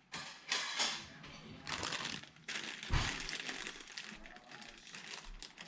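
Irregular rustling and handling noises as computer parts and their packaging are handled, with a dull thump about three seconds in.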